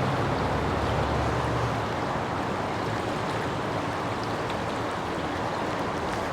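Fast, shallow river water rushing steadily over stones in a riffle, with a low rumble under it that drops away about two seconds in.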